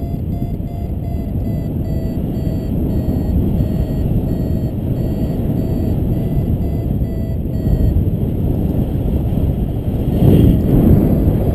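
Wind rushing over the microphone in flight, with a paragliding variometer beeping about twice a second, the sign that the glider is climbing in lift. The beeping stops about eight seconds in, and a louder gust of wind comes about two seconds later.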